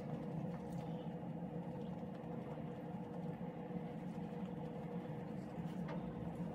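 Steady low background hum holding a couple of constant tones, with faint light taps now and then.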